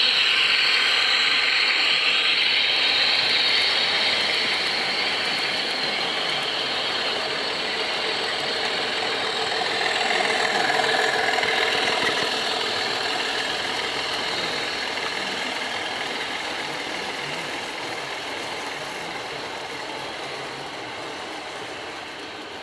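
O gauge model train running on a garden railway, its metal wheels giving a steady rolling hiss on the rails that slowly fades as it moves away.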